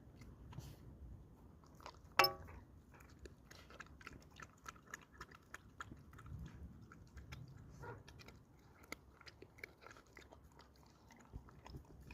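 Belgian Malinois puppy chewing and biting its food, a quick run of small wet clicks and crunches, with one brief sharp clink about two seconds in.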